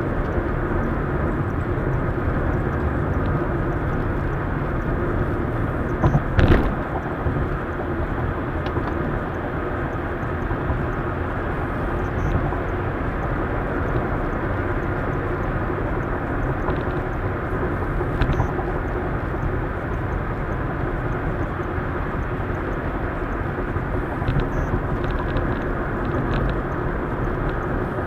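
Steady road and engine noise inside a car's cabin at highway speed, with a short knock about six seconds in.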